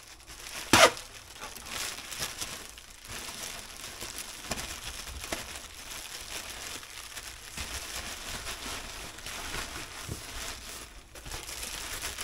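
Plastic air-pillow packing strips crinkling and rustling as they are handled and pushed into a cardboard box. One sharp snap about a second in, with smaller crackles after.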